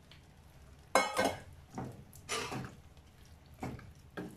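A spoon clinking and scraping against the kadai as partly cooked mutton is tipped into the masala with its cooking liquid. The loudest is a sharp ringing clink about a second in, followed by several shorter knocks and scrapes.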